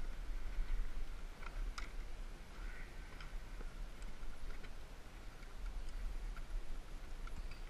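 Sparse, irregular light clicks and ticks over a steady low rumble.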